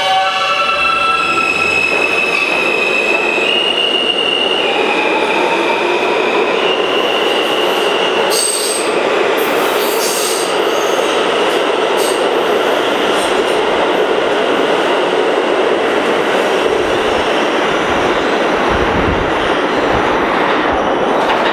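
New York City Subway R160 train accelerating out of an underground station. Its propulsion whine comes as a series of stepped level tones with a slowly rising tone under them for the first several seconds. Then the passing cars make a steady rumble and rattle on the rails, with a few sharp clicks and squeals around the middle.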